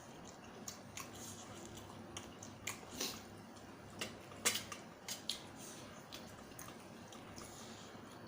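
Someone eating: scattered soft wet smacks and clicks of mouth and food, about eight of them, the sharpest about four and a half seconds in.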